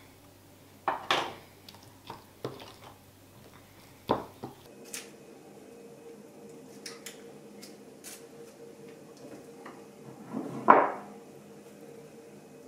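Kitchen utensils knocking and clinking against a bowl, several sharp knocks in the first few seconds while lemon is zested with a small metal grater. Then soft scraping of a silicone spatula spreading frosting on a cake in a baking tin, with one louder scrape near the end.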